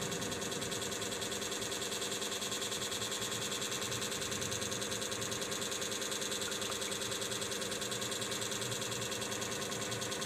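A small machine buzzing steadily with a fast, even pulse.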